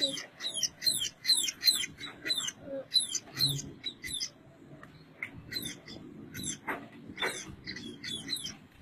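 A bird chirping in quick succession: short high chirps that each fall in pitch, about three a second for the first three seconds, then fewer and more scattered.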